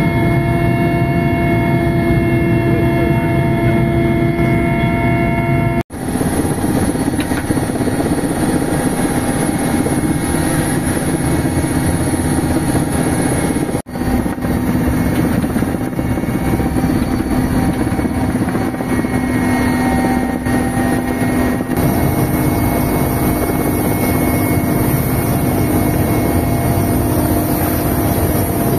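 Mi-8 helicopter heard from inside its cabin in flight: the twin turbine engines' steady whine over the heavy rotor noise. The sound drops out abruptly for a moment about 6 and 14 seconds in and shifts in tone about 22 seconds in, where separate shots are joined.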